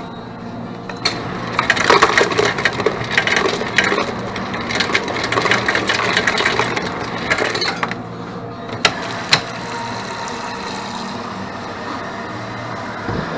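Things being handled and clattering together with much crinkling for about seven seconds, then two sharp clicks, over a steady low hum.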